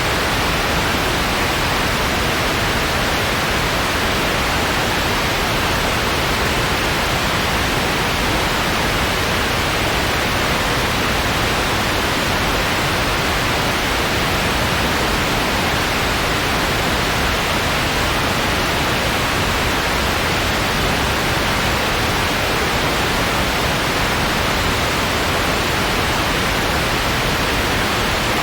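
Steady white noise: an even, unchanging hiss across the whole range.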